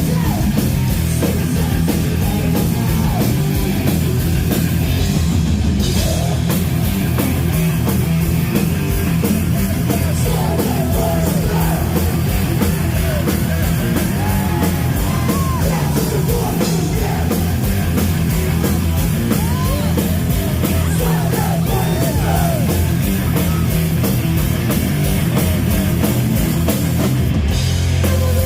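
Thrash metal band playing loud and live: pounding drums, distorted guitars and bass under shouted vocals.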